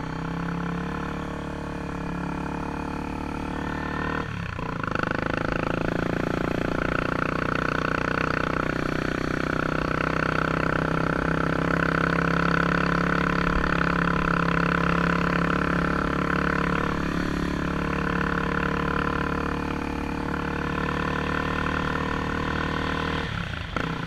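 Honda XRE 300's single-cylinder engine running steadily under way on a dirt road, with a brief drop in the engine note about four seconds in and again near the end.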